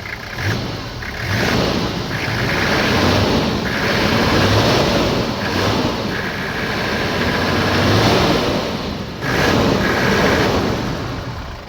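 Toyota 1HZ straight-six diesel engine running loudly with its fuel injection pump just refitted, the level swelling and easing several times.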